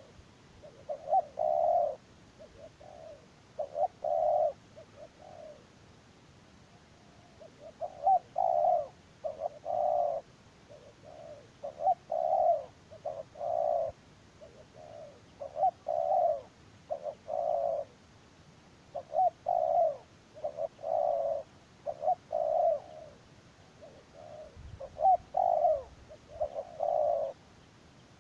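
Spotted dove cooing: repeated short, low, rolling phrases of a few notes each, one every two to four seconds.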